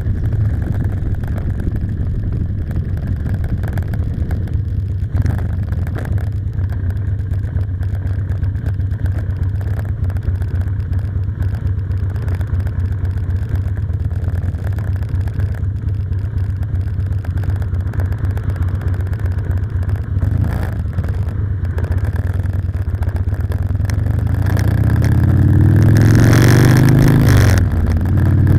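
Motorcycle engine running with a steady low rumble at moderate speed. Near the end it revs up and accelerates hard, getting louder with its pitch rising, dips sharply once at a gear change, then climbs again.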